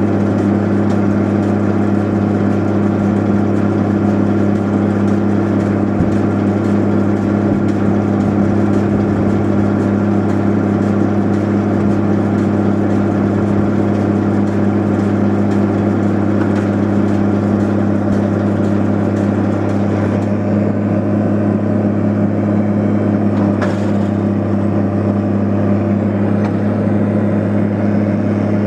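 Tractor engine running steadily at a constant working speed, pulling a Hesston 5500 round baler while baling.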